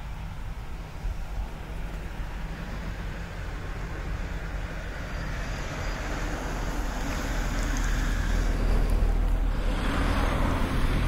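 Steady low outdoor rumble, growing louder over the second half.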